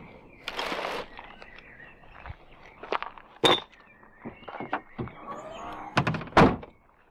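A plastic carrier bag rustles, then come knocks and thumps at a car boot as rubbish is put in. The loudest, heaviest thump comes near the end, typical of the boot lid being shut.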